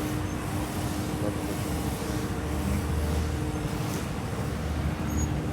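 City traffic noise: a steady low rumble of vehicles with a constant hum running underneath.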